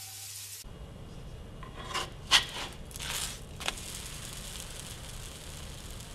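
Soufflé pancakes sizzling in a frying pan, a steady hiss that starts suddenly, with a few quick scrapes and taps of a spatula against the pan between about two and three and a half seconds in.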